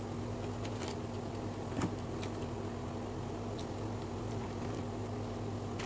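Quiet chewing of sushi, with a few faint clicks of mouth and chopsticks, the most noticeable nearly two seconds in, over a steady low hum.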